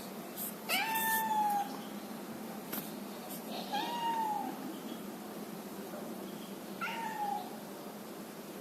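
A cat meowing three times, a few seconds apart, each meow rising then falling in pitch; the first is the longest.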